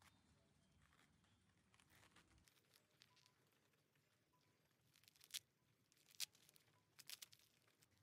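Faint cracking and tearing of a pomegranate's rind as the scored fruit is pried apart, with a few sharp snaps between about five and seven seconds in.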